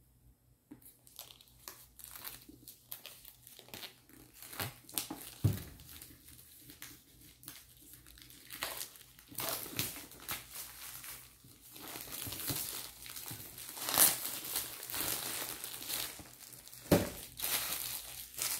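Cardboard box and plastic wrapping handled during unboxing: irregular rustling, scraping and crinkling as the seal is worked open, the inner box slid out and the plastic wrap crumpled in the hands, louder in the second half.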